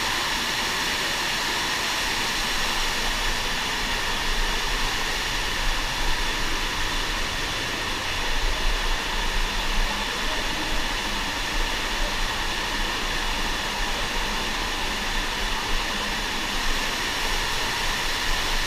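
A steady rushing noise that holds even, with small flutters in level and a low rumble underneath.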